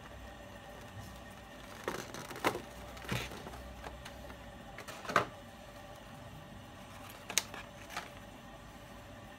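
Clear plastic display box being handled and its lid lifted off: about six sharp plastic clicks and taps scattered over a few seconds, over a faint steady hum.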